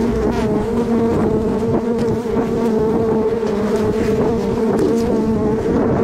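A dense swarm of honeybees buzzing loudly around their open comb, a steady, even hum, as the comb is being cut from its branch.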